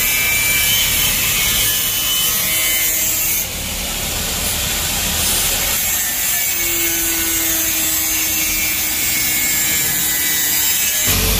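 A tool steadily cutting or grinding down a mini driving light's mounting bracket, which is being trimmed because it is too thick. It makes a continuous, even noise that dips briefly about three and a half seconds in.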